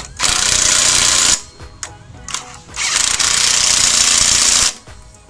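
Makita cordless impact wrench hammering on the scooter's front brake caliper bolts in two bursts, one of about a second and one of about two seconds, with a short pause between them.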